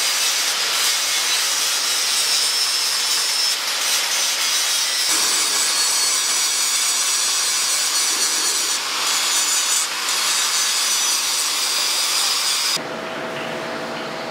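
Angle grinder with an abrasive disc grinding a curved metal band, a steady, high-pitched grinding. It cuts off sharply near the end, leaving a quieter steady hum.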